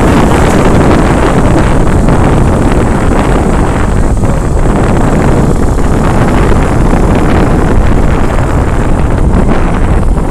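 Wind rushing over the microphone of a camera carried on a moving autocycle, mixed with the running of small autocycle and moped engines. The noise is loud and steady, with no single event standing out.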